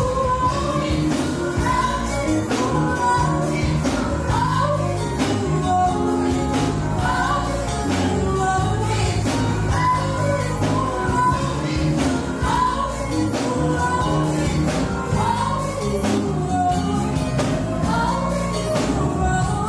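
Gospel song playing: sung melody over bass and a steady beat with tambourine-like percussion.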